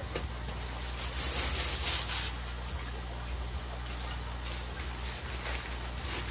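Plastic wrapping crinkling and rustling as a model train car is handled and unwrapped, loudest about a second in, with scattered crackles later, over a steady low hum.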